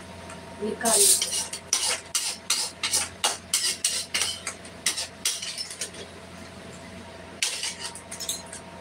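Steel spoon scraping and knocking against a steel pan and a steel plate as cooked filling is scooped from one to the other, in quick, irregular strokes with a short lull shortly before the end.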